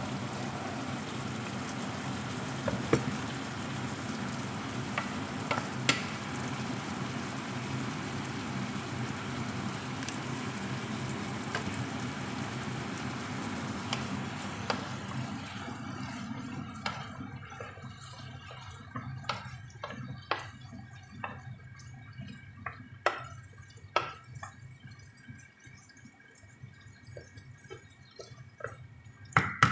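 Chicken and vegetables sizzling in a frying pan with water in it, stirred with a wooden spoon. The steady sizzle dies down about halfway, leaving scattered pops and spoon clicks over a faint steady high tone.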